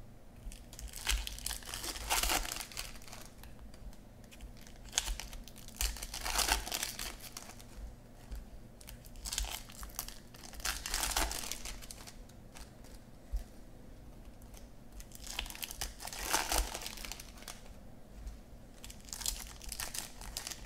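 Foil wrappers of Topps Chrome baseball card packs being torn open and crinkled by hand, with the cards slid out and handled. It comes in irregular bursts of crinkling and tearing every few seconds.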